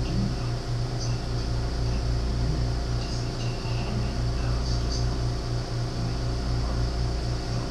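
Steady low mechanical hum, as of a running fan or appliance, with a low tone that pulses in an even rhythm. A few faint, short high sounds come and go over it.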